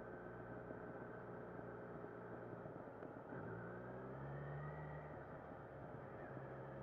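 Kawasaki Z900's inline-four engine running at low revs in second gear at low road speed, its pitch rising a little about three seconds in as the bike picks up speed.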